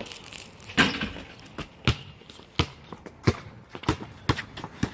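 A basketball being dribbled: a steady series of bounces, about one every two-thirds of a second.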